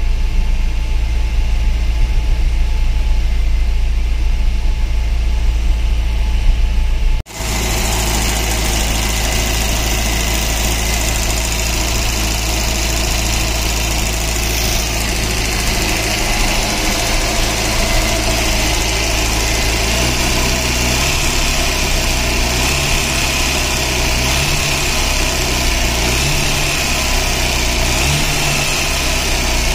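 Rebuilt, turbocharged four-cylinder engine of a Volvo 360 GLT idling steadily on one of its first runs. The sound drops out abruptly for an instant about seven seconds in, then carries on brighter and hissier.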